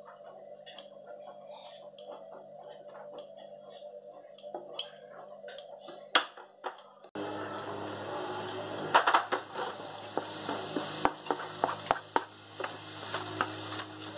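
Butter and oil sizzling faintly with scattered crackles in a stainless steel frying pan. About seven seconds in, the sizzle gets suddenly louder as chopped onion goes into the hot fat, with sharp clicks and scrapes of a wooden spoon stirring it against the pan.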